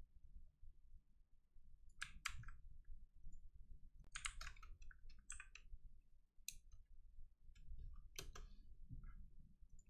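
Faint computer keyboard keystrokes and mouse clicks: scattered short taps with pauses between them, in small clusters about two and four seconds in, over a low steady room hum.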